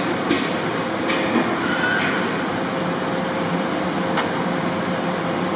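Steady background hum with a faint steady tone, and a few short sharp clicks in the first two seconds and one more about four seconds in, from the clamps of a Oneway 1236SD lathe being loosened.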